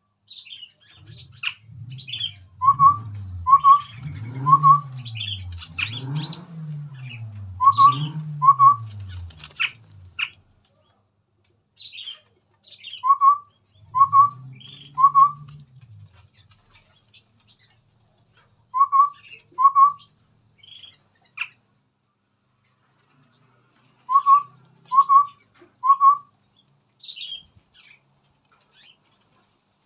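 Chestnut-rumped babbler calling: short, clear notes in groups of two or three, repeated every few seconds, with higher chirps scattered in between.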